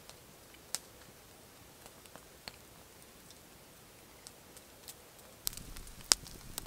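Campfire crackling with scattered sharp pops over a faint hiss; about five and a half seconds in it gets louder and busier, with a loud pop soon after.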